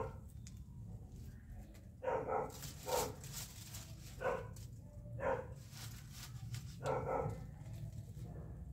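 A dog barking repeatedly, about seven short barks at uneven intervals, some in quick pairs, over a steady low rumble.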